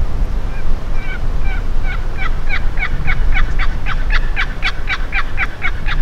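Hand-worked turkey call: a long run of about twenty short two-tone calling notes that starts soft and slow about half a second in, then speeds up and grows louder until it cuts off at the end. Low wind rumble on the microphone runs underneath.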